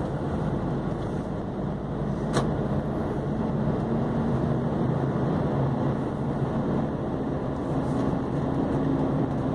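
Volkswagen Constellation 24-280 truck's diesel engine running steadily as the truck drives slowly through town, its pitch rising slightly about seven seconds in. A single sharp click about two and a half seconds in.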